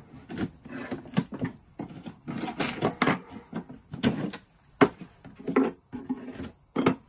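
Wooden hive frames clattering and knocking against the hive box as a metal hive tool pries them loose and they are lifted out. The knocks come irregularly, with two of the sharpest about five and seven seconds in.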